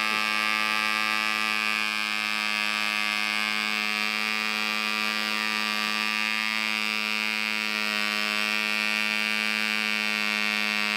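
Red Fin .049 model diesel engine, a tiny two-stroke, running at speed with its propeller: a high, steady buzz that holds one pitch without faltering.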